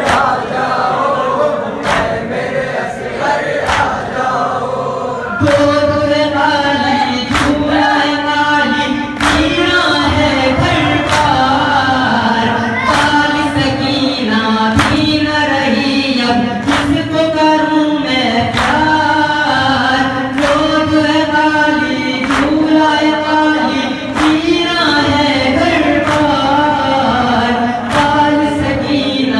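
A group of men chanting a noha, a Shia mourning elegy, in unison behind a lead reciter, with sharp slaps about once a second typical of matam chest-beating. The chant grows louder about five seconds in.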